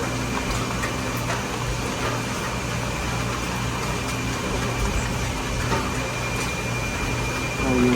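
Steady mechanical hum over an even background noise, with a faint constant high whine.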